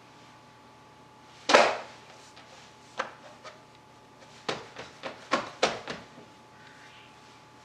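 A single heavy thump about one and a half seconds in, then a run of quieter pats and knocks as hands press and push pizza dough out on a plastic cutting board.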